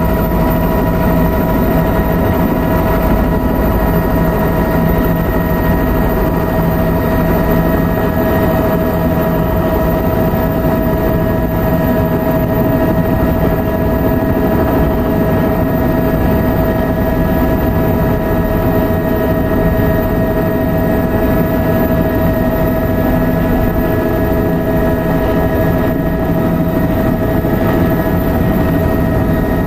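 Helicopter engine and rotors running, heard from inside the cabin: a loud, steady drone of several constant tones over a dense rumble, as the helicopter comes in low to land.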